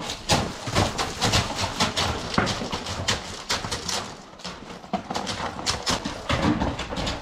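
Stallion's hooves beating on the ground as it runs, many quick, irregular clops.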